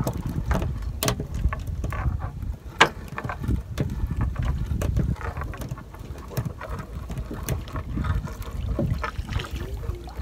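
Fishing net being hauled by hand into a small boat: irregular knocks and taps of the net against the hull, over a steady low rumble. One sharper knock comes about three seconds in.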